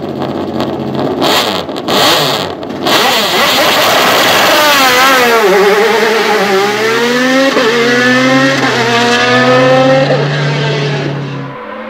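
Alfa Romeo 155 DTM V6 Ti's 2.5-litre 690RC V6 race engine revving hard on the start line, then launching and pulling through several upshifts: each gear a rise in pitch cut off by a quick drop. The sound fades off near the end as the car gets away.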